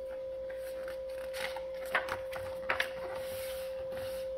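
Pages of a paperback picture book being turned, giving a few short paper rustles about one and a half, two and nearly three seconds in, over a steady background tone.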